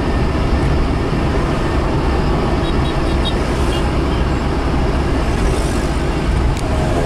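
Cabin noise of a Mitsubishi Kuda with a 1600 cc petrol engine, fitted with a Toyota Kijang 7K carburettor, cruising steadily at about 56 km/h: a constant engine drone mixed with tyre and road noise.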